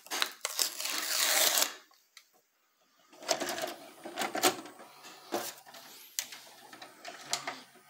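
Loud rustling close to the microphone, then after a short pause a string of sharp clicks and mechanical clatter from a VHS video recorder as a cassette is handled and loaded.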